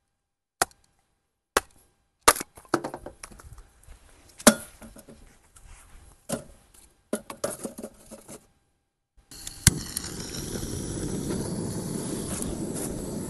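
A hatchet splitting kindling on a wooden stump: a string of sharp chops and cracks of splitting wood, with sticks knocking as they are set into a rocket stove's feed opening. About nine seconds in, a click and then a steady hiss of a handheld gas torch lighting the kindling in the stove.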